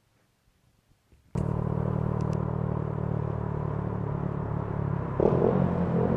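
Near silence for about a second, then a Honda Grom MSX125's single-cylinder 125 cc engine starts suddenly in the sound, running through an Anodizing Racing aftermarket exhaust as the bike is ridden. The steady engine note gets louder about five seconds in.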